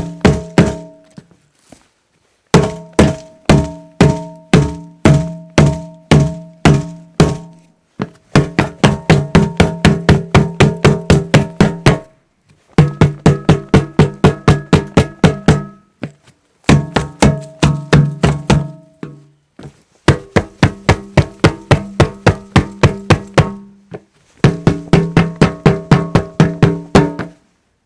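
Repeated hollow knocks, each hit ringing briefly with a pitched, resonant tone. They come in runs of several strikes with short pauses between. The first run is about two hits a second, and later runs are faster, about four or five a second.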